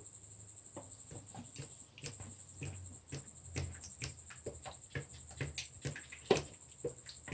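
Irregular light clicks and taps of objects being handled, with one sharper knock about six seconds in.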